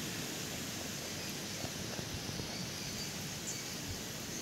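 Steady, even hiss of background noise, with no clear single event standing out.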